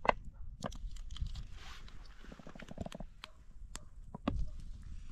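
Wind rumbling on the microphone, with scattered light clicks and knocks of cookware being handled on an outdoor stove and a brief hiss about one and a half seconds in.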